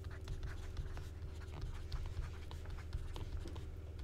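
Stylus tapping and scratching on a tablet screen as words are handwritten, in short irregular strokes, over a steady low hum.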